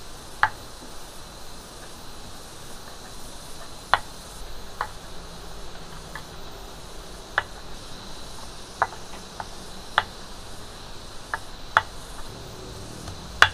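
Insects droning steadily in the background, broken by short, sharp clicks or taps at irregular intervals, roughly one every second.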